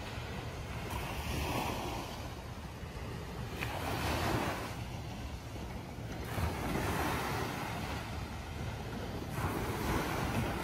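Small sea waves breaking and washing up on a sandy beach, the surf swelling every few seconds, with wind rumbling on the microphone.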